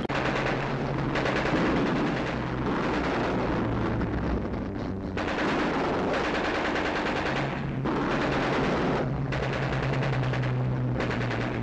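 Aircraft machine guns firing in long rapid bursts, with short breaks between them, over the steady low drone of aircraft engines.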